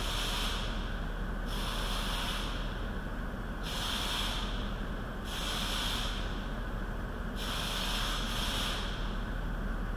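A spray hissing in five bursts of about a second each, as something is sprayed in an engine bay during engine cleaning, over a steady low hum.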